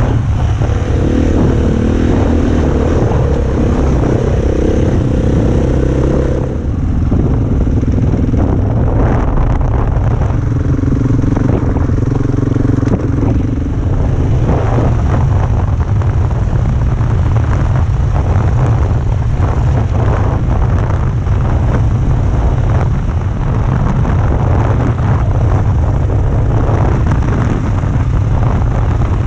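KTM dirt bike engine running as the bike is ridden, over a deep, steady rumble; the engine's pitched note drops away about six and a half seconds in.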